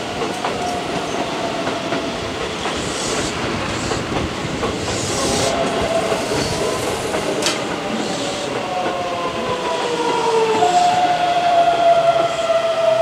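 Keihan 9000 series electric train pulling into a station and braking, wheel and rail noise under a whine of several tones that glide slowly down in pitch as it slows.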